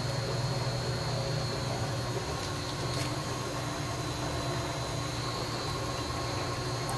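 Water running steadily out of an open tank drain pipe and splashing onto the ground, over a steady low hum.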